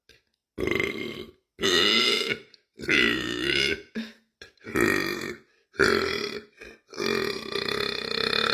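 A woman burping repeatedly: about six separate burps of up to a second each, then a long drawn-out burp starting near the end.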